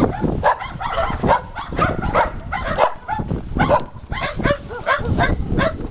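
Several shelter dogs barking at once, a dense run of overlapping barks, several a second and without a break.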